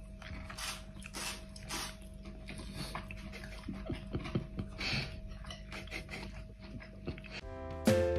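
Soft, irregular clicks and chewing noises of a person eating at a table, with a fork tapping a plate, over a faint steady hum. About seven and a half seconds in, music with plucked notes starts.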